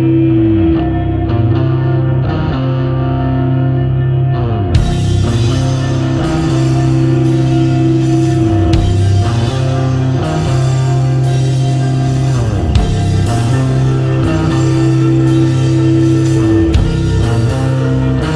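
Instrumental rock theme music, with guitar; it grows fuller and brighter about five seconds in.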